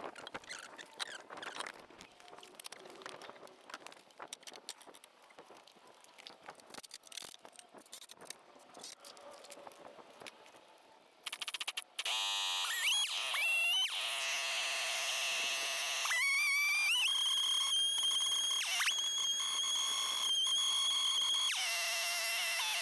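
Faint scattered clicks and crackles, then about halfway through a Husqvarna 572 XP chainsaw comes in loudly, revving up in rising whines and then running at high revs with a steady high whine that sags briefly a few times, as it does when the chain bites into the wood in a chainsaw mill.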